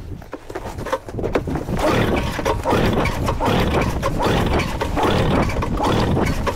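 A 1974 Arctic Cat Cheetah 340 snowmobile's two-stroke engine running, coming up louder and rougher about two seconds in. The sound is sped up by double-speed playback.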